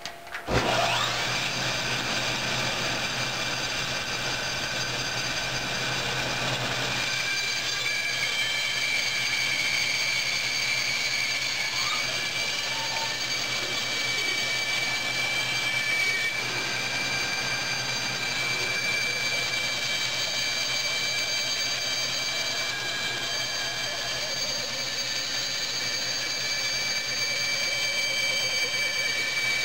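Band saw switched on about half a second in, coming up to speed with a short rising whine, then running steadily with a high, even whine while its narrow 1/8-inch blade cuts a circle in a dense melamine board.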